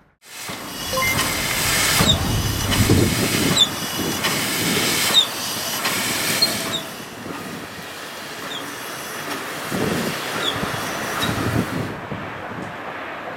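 PKP Ol49 steam locomotive working slowly, with a steady hiss of steam, slow exhaust chuffs and short high squeaks about once a second. The sound fades in at the start, drops to a quieter level about halfway through, and changes near the end.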